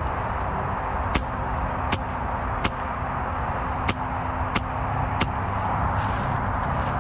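Suppressed HPA airsoft rifle, a Polarstar-engined HK416 replica, firing single shots: six sharp clicks, mostly about two-thirds of a second apart, over a steady background hiss.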